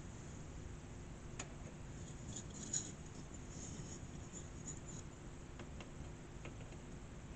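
Faint clicks and scrapes of an Asus GT 710 graphics card being handled and fitted into a PC case's expansion slot, its metal bracket knocking against the case. The sharpest click comes nearly three seconds in, with another a little over a second in and a few lighter ticks later.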